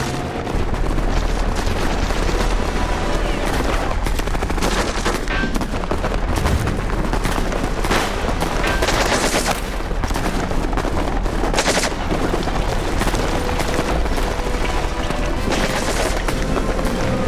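Staged film battle: continuous automatic gunfire from submachine guns, with several louder bangs standing out along the way.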